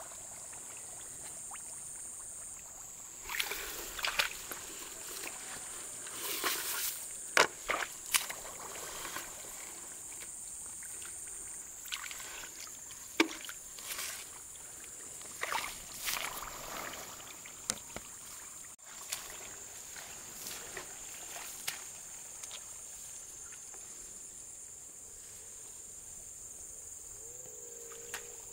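Shallow muddy paddy water splashing and sloshing in irregular bursts as a person wades and gropes through it by hand. Under it runs a steady high-pitched drone of insects.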